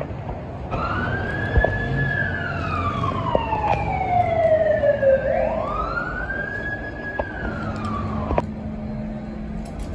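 Emergency vehicle siren wailing: a slow rise and fall in pitch that goes through about two cycles, starting about a second in and cutting off abruptly about eight seconds in.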